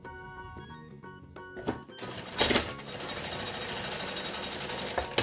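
Industrial lockstitch sewing machine running fast for about three seconds, sewing a short securing stitch through a fabric appliqué wing, with louder knocks as it starts and again near the end. Light background music plays before it starts.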